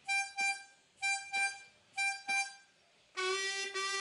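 A C diatonic harmonica plays three pairs of short, detached notes on one high pitch, the hole-6 blow. About three seconds in comes a long held low note, the bent hole-2 draw.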